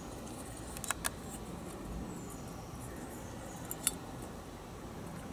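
A few faint clicks from small metal carburetor parts being handled as the float bowl is worked off a Briggs & Stratton carburetor: two close together about a second in, another about four seconds in.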